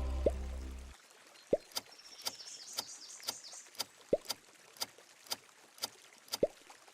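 A sustained low musical tone cuts off about a second in. Then comes a countdown-timer sound effect: soft sharp ticks about twice a second, with an occasional short water-drop-like plink in between.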